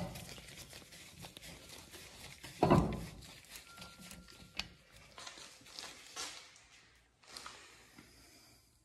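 Handling sounds of a Phillips-bit tool working the new brake rotor's retaining screws at the wheel hub: a single heavy thump about three seconds in, then light metallic clicks and scrapes.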